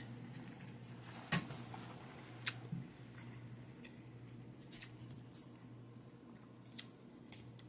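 A person eating salad close to the microphone: scattered soft chewing, crunching and mouth clicks, the loudest a little over a second in.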